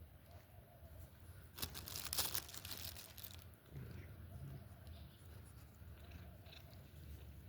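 A cat eating, chewing and crunching its food, with a louder run of crunching from about a second and a half in that lasts about two seconds.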